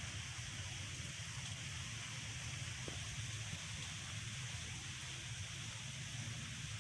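Steady outdoor background noise: an even hiss over a low hum, with no distinct events.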